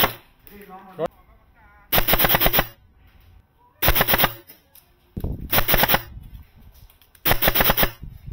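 Four short bursts of rapid automatic fire from skirmish-game guns, each under a second long, at roughly a dozen shots a second, with quiet gaps between them.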